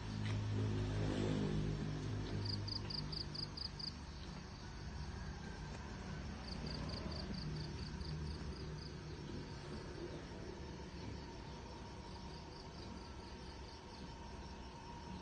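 An insect chirping in short trains of high pulses, about four a second, that stop and start again several times, over a low hum that is loudest in the first few seconds.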